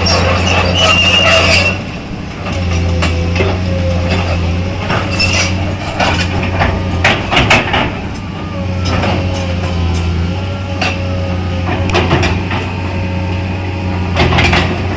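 Komatsu PC200-8 hydraulic excavator's diesel engine running steadily under load, with a hydraulic whine that comes and goes, while it tears out a mango tree. Repeated sharp cracks and snaps come through it, in clusters around the middle and near the end.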